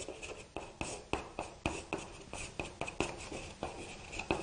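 Someone writing by hand: a run of short, irregular scratchy strokes and taps, about three or four a second.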